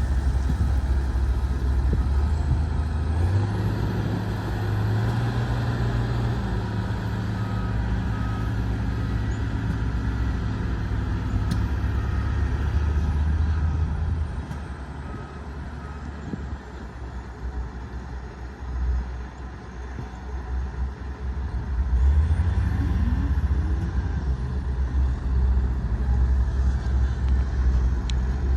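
A Sakai road roller's diesel engine running. Its low note rises about three seconds in and holds, then drops quieter and uneven for several seconds before coming back up louder near the end.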